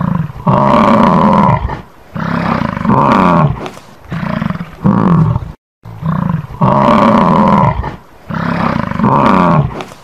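A big cat roaring: a series of loud, drawn-out roars about a second each, the same run of roars played twice with a short break near the middle.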